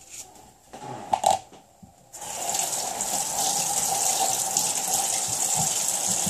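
Kitchen faucet turned on about two seconds in, water running steadily from the tap into a stainless steel sink. Before it, a brief sharp knock about a second in.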